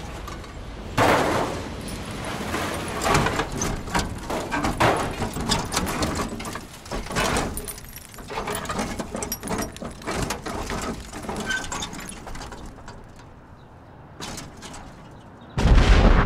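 Car crash: irregular knocks, clatter and crunches, easing off, then a sudden loud blast like an explosion near the end.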